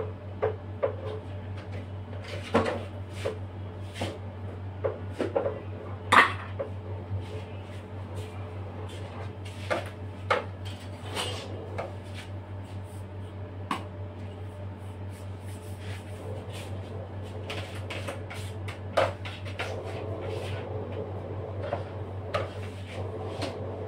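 A metal spatula tapping and scraping against a plastic cream tub and a cake turntable while whipped cream is spread and smoothed on a cake. It makes irregular clicks and knocks, the loudest about six seconds in, with a steady scraping toward the end, over a steady low hum.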